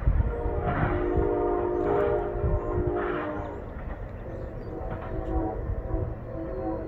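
Norfolk Southern locomotive's air horn sounding a chord of several notes: one long blast, then a second blast about four and a half seconds in.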